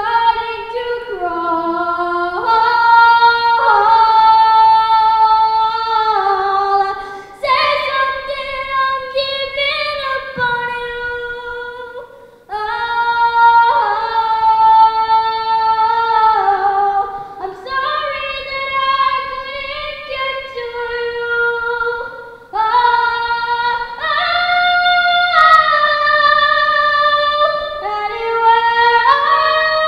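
A boy with an unbroken, high voice singing solo into a handheld microphone. He holds long notes in phrases that step up and down in pitch, with brief breaks between phrases about 7, 12 and 22 seconds in.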